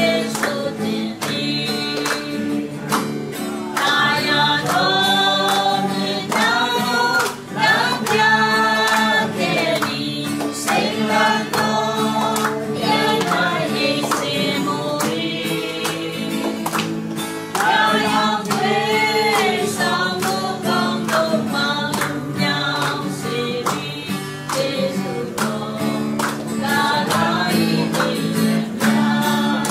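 A group of voices singing a song together to an acoustic guitar, with hands clapping along in a steady beat.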